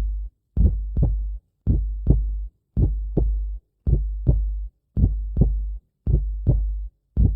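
Heartbeat sound effect: a slow, deep double thump, lub-dub, repeating about once a second.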